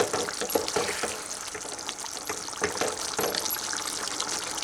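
A spatula stirring a simmering potato-and-pointed-gourd curry in the pan: wet sloshing of the gravy with irregular scrapes and knocks against the pan.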